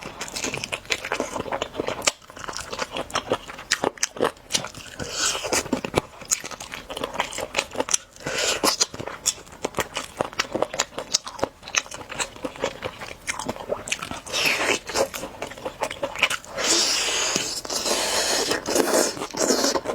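Close-up eating of an Orleans-style roast chicken drumstick: bites and chewing with many small, irregular crunchy clicks.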